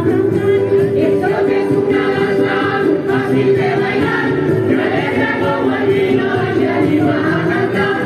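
Music with a group of voices singing together over a sustained accompaniment.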